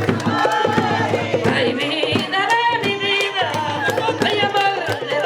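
Panamanian tamborito: a woman singing a sung lead line over hand drums beating steadily, with many sharp strikes.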